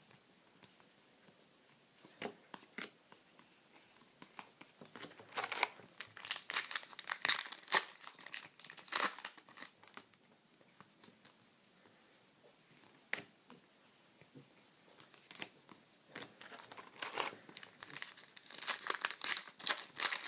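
Trading-card pack wrappers being torn open and crinkled, in two bouts of crackling, one in the middle and a longer one near the end, with scattered small ticks of card handling between.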